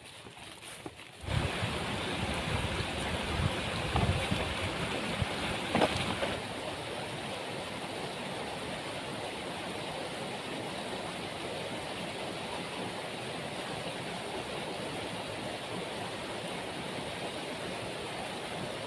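Waterfall's rushing water, a steady roar that starts suddenly about a second in. It is louder with low, gusty thumps for the first five seconds, then settles to an even rush.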